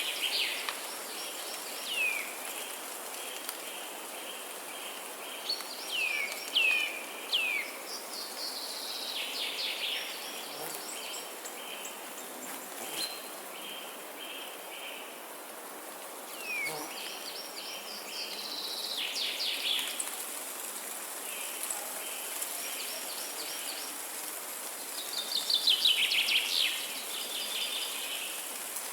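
Wild birds calling over a steady background hiss: short down-slurred whistles and bouts of rapid trills, with fainter pulsing insect-like chirps between them. The loudest trill comes near the end.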